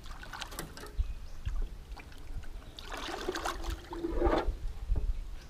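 Water splashing and trickling as hands work in the pond beside a wooden canoe, with a few knocks against the hull.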